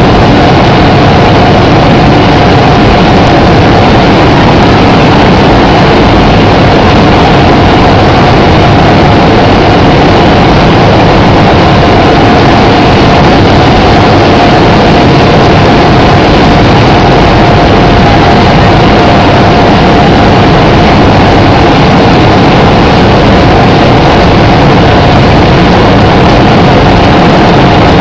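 Steady, loud machinery noise of an automatic bag-packing line running, motors and conveyors going without a break, with one steady whine held throughout.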